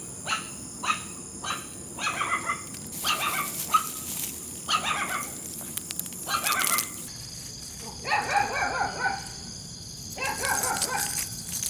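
A dog barking and yipping again and again in short calls, with longer runs of yips near the end, over a steady high-pitched whine.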